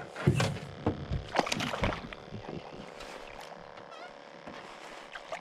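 A hooked largemouth bass splashing at the water's surface beside the boat as it is landed by hand, several splashes in the first two seconds, then quieter lapping water.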